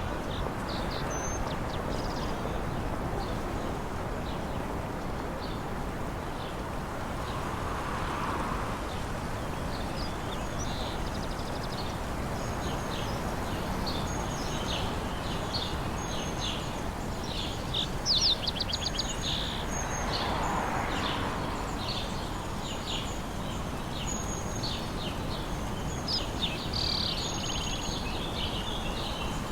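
Quiet village ambience: a steady outdoor background hush with small birds chirping throughout. A quick rattling trill comes about two-thirds of the way through, and the background swells softly twice.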